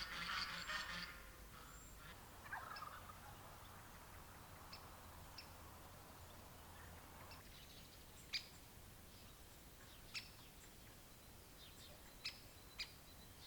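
Turkey gobbling, a rattling call in the first second, followed by a shorter call and a few brief, sharp bird chirps later on over faint outdoor background.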